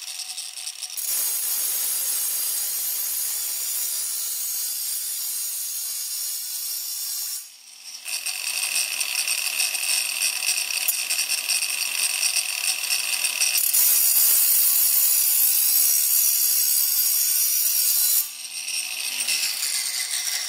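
Variable-speed angle grinder with a diamond wheel grinding a chamfer along the edge of a wet granite countertop, a steady high whine with gritty stone-grinding noise. It cuts off briefly about seven seconds in, runs louder for a few seconds in the second half, then drops back near the end.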